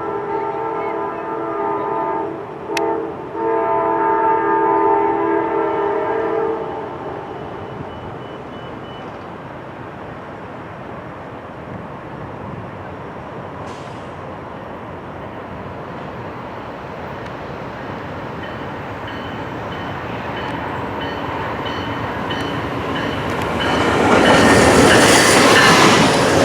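Amtrak GE P42DC locomotive's horn sounding, one blast breaking off briefly near 3 s and a second ending about 6 s in. Then the approaching train's rumble, which grows until the train passes loudly near the end.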